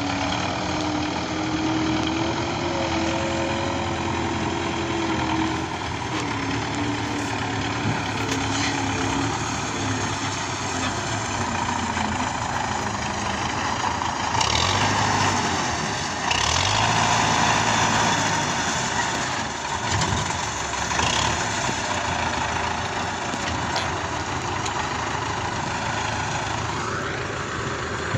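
Belarus MTZ tractor's diesel engine running as it loads timber, its speed and loudness rising twice about halfway through and settling again.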